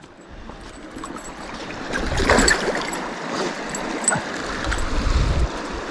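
Flowing river water, a steady rushing trickle, with two louder stretches of splashing, rumbling noise about two seconds in and again near the end.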